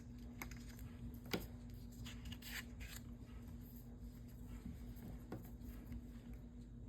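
Paper and card being handled for crafting: light rustling and a couple of small clicks, over a faint steady hum.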